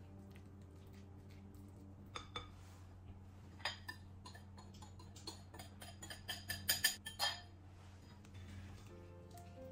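Metal wire whisk clinking and tapping against a glass mixing bowl: a run of light clinks that quickens and is loudest about seven seconds in, then stops. Soft background music underneath.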